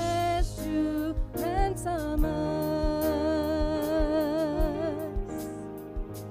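Church worship team singing a hymn with instrumental accompaniment: a woman's voice leads, holding long notes with wide vibrato, over a steady beat.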